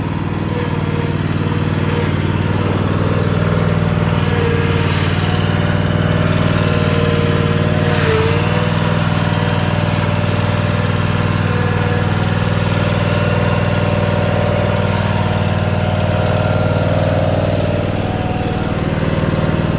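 Commercial lawn mower engine running steadily at a constant speed, with a brief wobble about eight seconds in.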